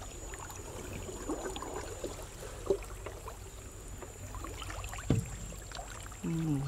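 Shallow pond water sloshing and lightly splashing as a person wades and moves a hand through it, with two sharper splashes, one about three seconds in and one about five seconds in.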